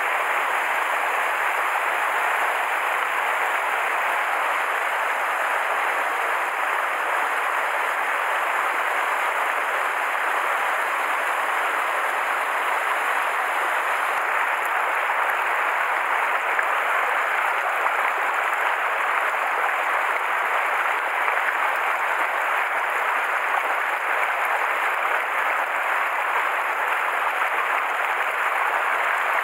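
Shallow mountain stream running over boulders and small cascades: a steady, even rush of water.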